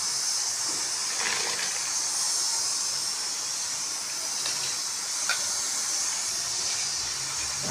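Pot of water at the boil hissing steadily while dry rice is poured into it from a tray, with a few faint ticks as grains fall in.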